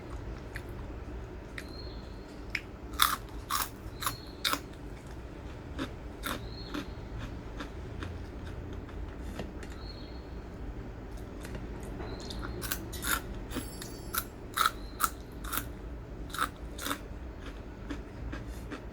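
A person biting and chewing crisp food close to the microphone: sharp crunches in irregular clusters, with a burst early on and another, denser one past the middle.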